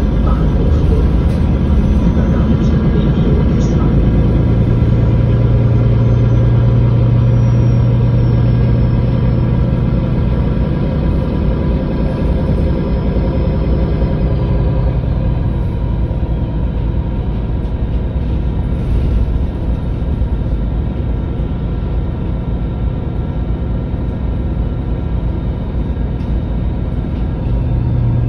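MAN Lion's City GL articulated city bus's six-cylinder diesel engine idling steadily while the bus stands at a stop. A faint high whine slowly falls in pitch over the first half.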